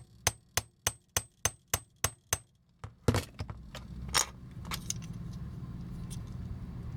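Small hammer tapping a metal pin punch to drive a stuck pin out of a toy, about eight quick, evenly spaced light taps with a short metallic ring, then a pause and a few heavier, irregular knocks a second or so later.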